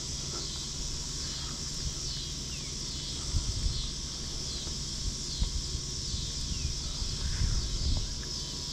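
Steady, high insect chorus from the pond's surroundings, pulsing evenly, with a few low thumps about halfway through and again near the end.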